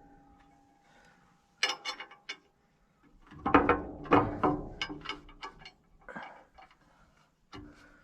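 Hand tools clanking and knocking on steel plow parts. A ringing tone from a struck piece of metal fades out about a second in, and a run of heavier knocks comes near the middle.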